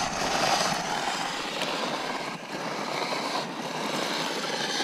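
Overheated Suzuki RMX450Z's cooling system boiling, a steady hiss with bubbling as hot steam and coolant vent from the overflow reservoir: the engine is overheating from a slow hill climb with no airflow on a hot day.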